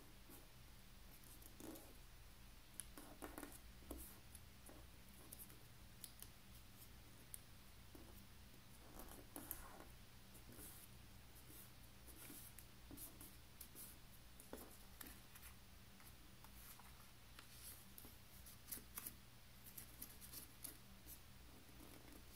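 Faint rustling and crisp creasing of a small piece of printed paper being folded into narrow pleats by hand, with scattered soft clicks and crinkles.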